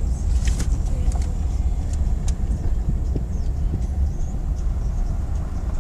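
Steady low rumble of a moving vehicle's road and engine noise heard from inside the cabin, with a few faint clicks.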